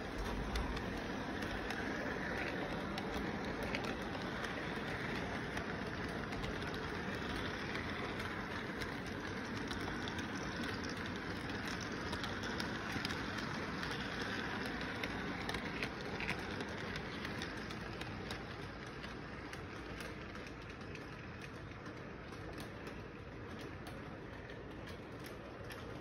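Toy electric train running along its track close by: a steady rattle of the wheels and cars on the rails with fine clicking, growing quieter in the last third as the train moves away.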